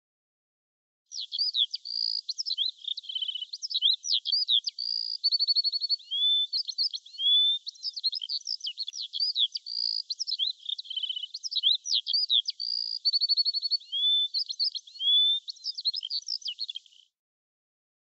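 Songbird singing: a fast, continuous jumble of chirps, short trills and gliding whistled notes, starting about a second in and cutting off abruptly about a second before the end.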